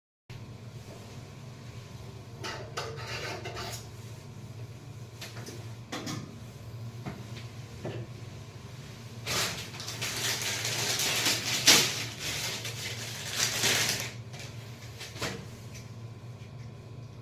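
Scattered metallic clinks and knocks from handling metal parts or tools, with a longer, louder stretch of clattering and scraping a little past halfway, over a steady low hum.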